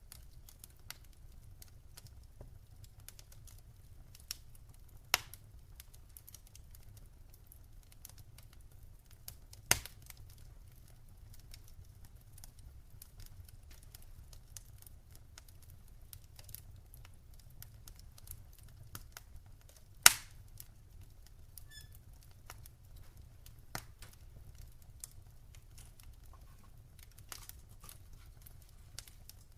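Wood fire burning in a fireplace: a low steady rumble of flame under scattered small crackles, with a few sharp pops about 5, 10 and 20 seconds in, the one near 20 seconds the loudest.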